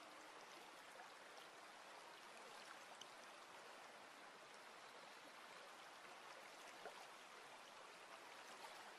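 Faint, steady trickle of water from a small garden cascade spilling over a stone ledge into a shallow pebbled pool.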